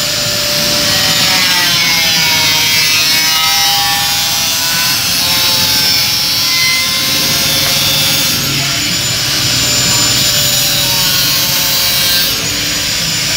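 Small angle grinder with a cutting disc cutting through thin stainless steel sheet: a loud, steady, hissing grind over the motor's whine, which wavers in pitch as the disc is worked along the cut.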